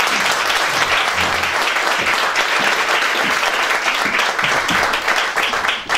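Audience applauding steadily: dense, even clapping from a roomful of people.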